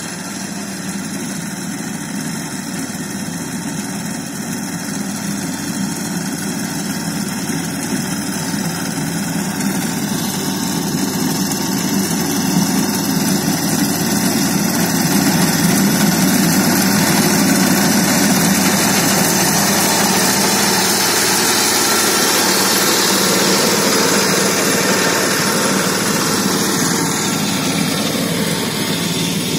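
Engine of a BCS walk-behind reaper running steadily as it cuts soybeans, growing louder over the first half as the machine comes closer.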